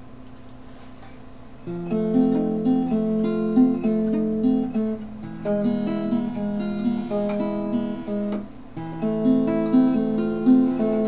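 Acoustic guitar played solo as an instrumental introduction: picked chords over a repeating bass line. It comes in about two seconds in after a quiet start, with a brief pause about two-thirds of the way through.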